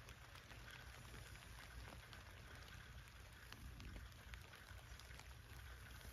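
Faint rain falling on a tent, heard from inside: a steady soft hiss with many scattered small ticks of drops hitting the fabric.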